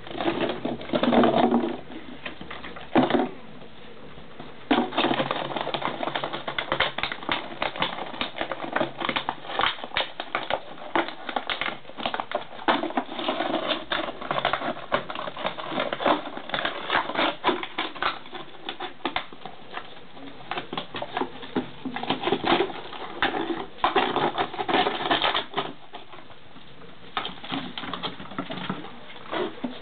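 German pinscher puppies' claws clicking and scrabbling on a stone slab and concrete as they play, a rapid, irregular patter of clicks. There are a couple of louder short noises in the first few seconds.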